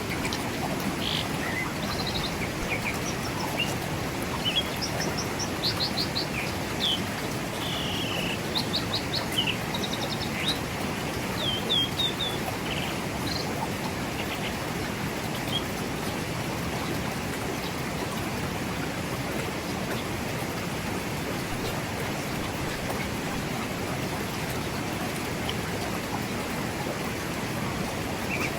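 Forest river flowing over rocks, a steady rush of water, with birds chirping in quick series of short high notes through the first half and only now and then after that.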